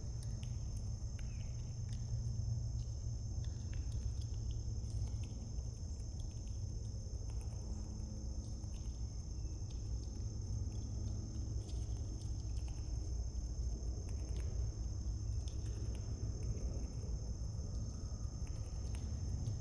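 Crickets chirring in a steady, unbroken high-pitched chorus, with scattered faint clicks and taps over a low background rumble.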